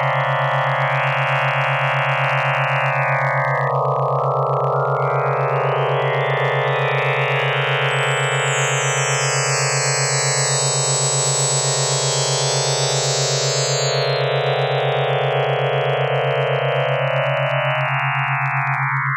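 Electronic synthesizer drone: a steady low tone with a fast flutter under a dense cluster of higher sustained tones that swell and shift. Near the end the higher tones slide down and drop away.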